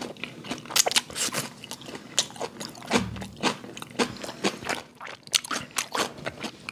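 Close-miked chewing of raw yellowtail (bangeo) sashimi, a run of irregular wet mouth clicks and smacks.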